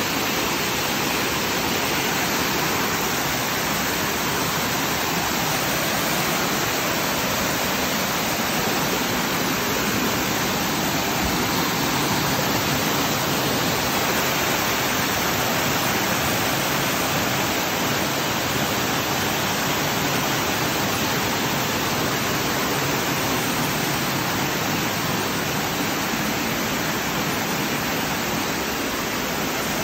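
Waterfall pouring over rocks into a pool: a loud, steady, unbroken rush of water.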